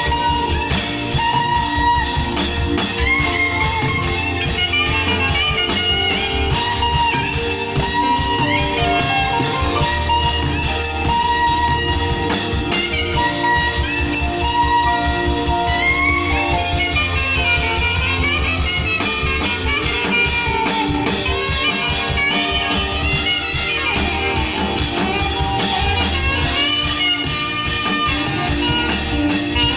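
Saxophone playing a worship-song melody with bending, sliding phrases over a band accompaniment in which guitar stands out, with bass and drums underneath.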